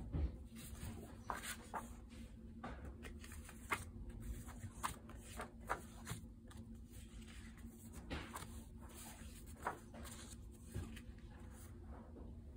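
Loose paper notecards handled by hand, picked up, leafed through and laid down on a pile: soft, irregular paper rustles and light taps.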